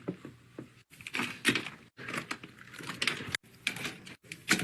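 Small plastic fidget toys clattering and clicking as they are handled, in short irregular bursts that break off abruptly several times.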